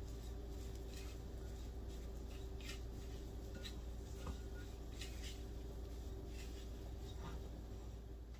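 Silicone spatula stirring diced boiled potatoes and spices in a glass bowl: soft, scattered scrapes and light taps against the glass, over a steady low hum.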